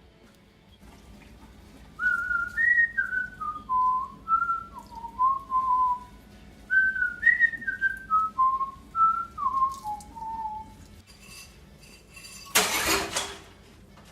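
A person whistling a short tune: the same falling phrase of short held notes twice. Near the end a loud burst of noise lasts about a second.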